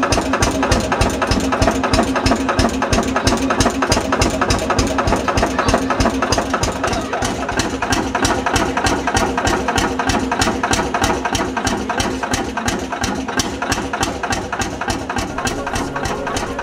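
Vintage single-cylinder hot-bulb (testa calda) tractor engine idling, its exhaust beating in a rapid, even rhythm.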